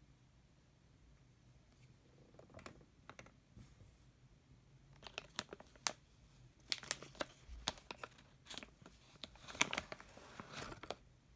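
Plastic makeup packaging being handled, crinkling and crackling with sharp clicks. It starts sparse about two seconds in and turns into a dense run of crackles and clicks from about halfway through.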